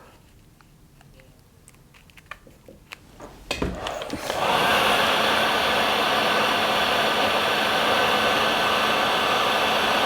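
A few light handling clicks, then a heat gun is switched on about three and a half seconds in and blows steadily with a faint low hum, shrinking heat-shrink tubing over the cable end.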